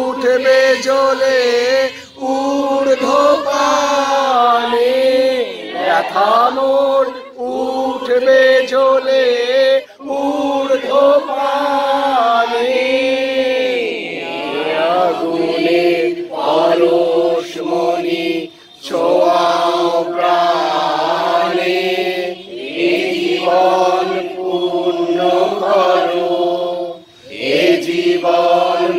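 A crowd of voices singing a Bengali song together in unison, with long held notes and brief breaks between lines.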